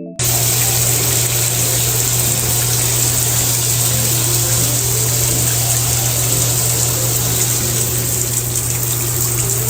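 A loud, steady rushing noise with a constant low hum underneath, cutting in abruptly at the start and holding unchanged.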